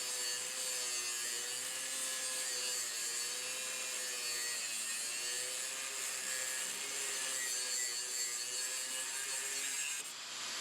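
Electric chainsaw cutting through wood, a steady motor whine with a rasping cut whose pitch wavers slightly as the load changes; it cuts off near the end.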